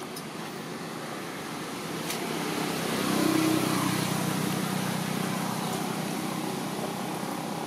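A motor engine passing by, growing louder to a peak about three seconds in and then slowly fading, with a low steady hum.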